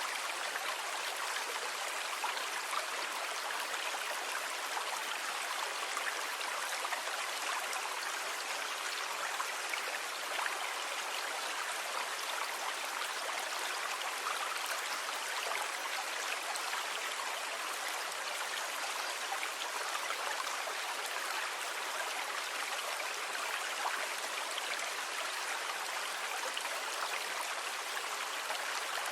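Sea water ambience: a steady, even rush of water with fine splashing, without distinct rising and falling wave swells.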